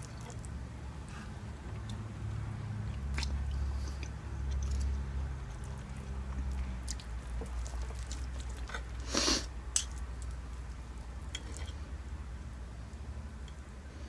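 A person chewing food close to the microphone, with scattered small clicks and one short, louder noise about nine seconds in.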